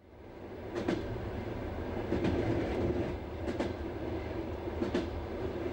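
Passenger train running on the rails, heard from on board: a steady rumble with the wheels clicking over rail joints in pairs about every second and a half. The sound fades in over the first second.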